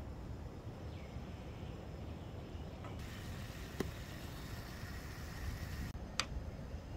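Gas camping stove burning under a pot of simmering noodles: a steady low rumble, with a brighter hiss for about three seconds in the middle and a couple of sharp clicks.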